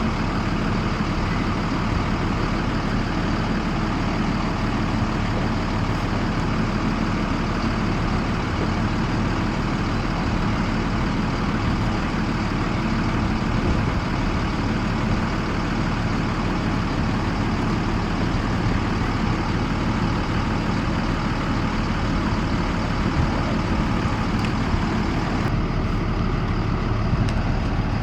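Yellow school bus engine idling steadily with an even low hum.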